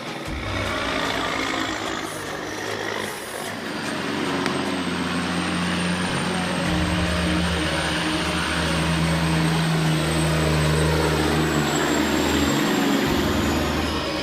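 Heavy diesel engine of a logging machine running under load, growing louder about four seconds in, with a faint high whine above it.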